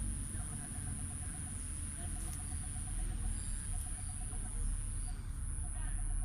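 Insects calling: a steady high-pitched whine, with a lower rapid pulsing chirp repeated in short runs, over a low rumble.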